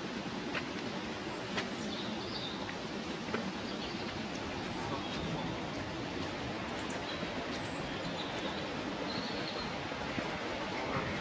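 Steady outdoor hiss of wet, windy weather with a few sharp taps, and birds chirping briefly and faintly now and then.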